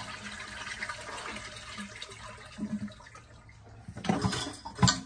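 Toilet flushing with its water supply shut off, so the tank drains into the bowl without refilling: a rush of water that fades away over the first three seconds. Near the end come two sharp knocks, the second the loudest sound.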